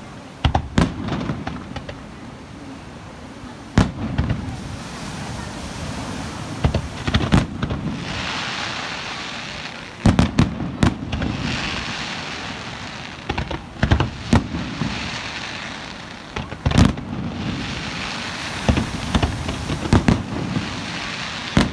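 Fireworks display: aerial shells bursting with sharp bangs every second or few, some in quick pairs. Between the bangs runs a crackling hiss from the burning stars, thickest in the middle of the stretch.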